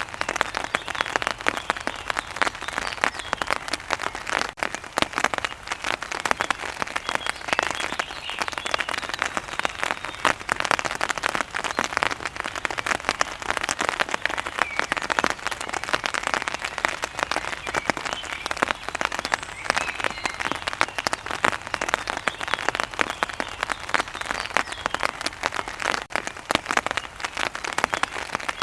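Heavy rain falling steadily, a dense crackling patter of drops on a hard surface, with faint bird chirps now and then behind it.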